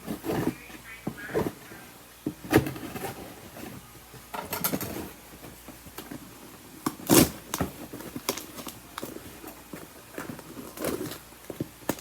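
Irregular handling noises from a package being opened: scattered knocks and taps, the sharpest about two and a half and seven seconds in, with brief rustling in between.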